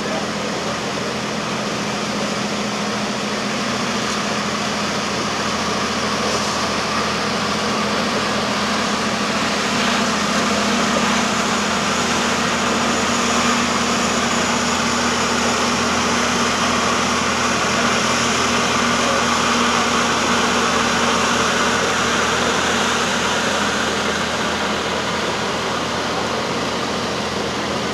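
EMD F40PH diesel locomotive running steadily with a constant engine drone that swells slightly in the middle.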